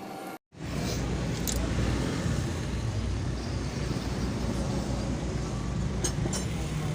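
A motor vehicle's engine running with a steady low rumble, after a brief dropout near the start; a few light clicks sound over it.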